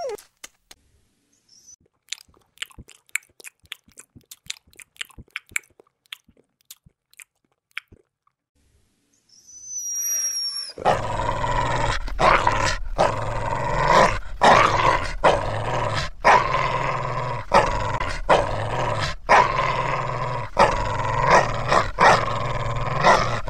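Dog sounds: scattered light clicks for the first several seconds, then, from about eleven seconds in, a continuous rough dog growl broken by short regular pauses.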